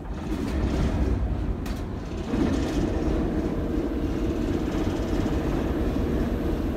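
Class 08 diesel shunter's English Electric six-cylinder engine starting up and running, getting louder and steadier a couple of seconds in.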